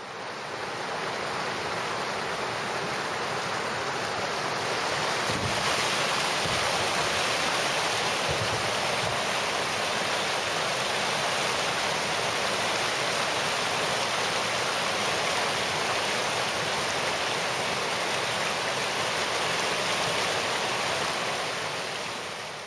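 Whitewater river rapids rushing, a steady dense noise of water that fades in at the start and fades out near the end.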